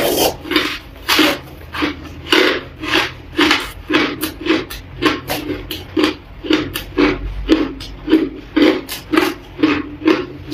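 Crushed ice being chewed in the mouth: a steady run of crisp crunches, about three a second.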